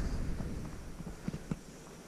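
Footsteps on a concrete floor: a few light steps, the clearest two about a second and a half in, over a low rumble that fades away.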